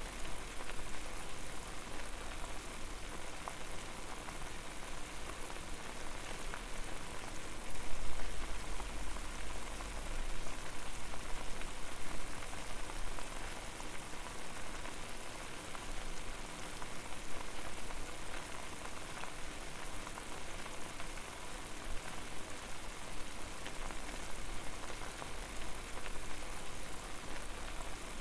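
Water boiling hard over a fire: a dense, steady bubbling and popping with a low rumble underneath, briefly louder about eight seconds in.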